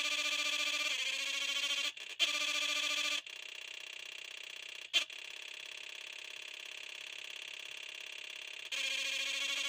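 An electronic sound machine giving out steady, buzzy synthetic tones that jump between settings. There are brief cut-outs about two seconds in, a quieter, thinner tone from about three seconds in with a sharp click near the middle, and the louder tone returns near the end.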